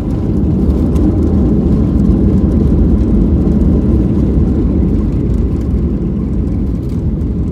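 Cabin noise of a Boeing 737-600 landing: a loud, steady low rumble of engines and airflow, heard from inside the passenger cabin. It swells slightly in the first seconds and eases a little near the end.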